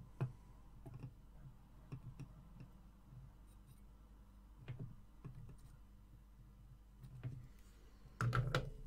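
Faint, scattered clicks and light taps of hand-soldering a small through-hole circuit board: the soldering iron and board knocking lightly against the bench, with a louder knock near the end.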